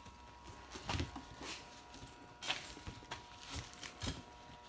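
Scattered light knocks and handling noises as the trim molding is worked onto the car's window rubber, over a faint steady hum.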